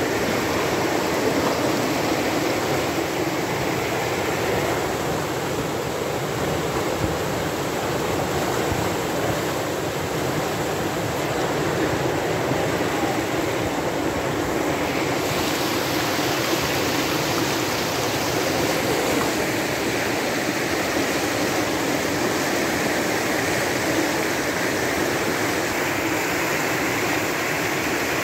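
Muddy flash-flood water rushing down a swollen river channel, a steady, loud, unbroken rush.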